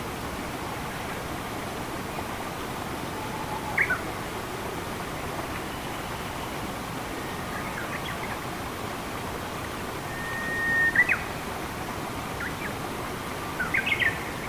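Steady rush of flowing water with a few short bird calls over it: a pair of falling notes about four seconds in, a held whistle ending in a sharp note about eleven seconds in, and a quick cluster of notes near the end.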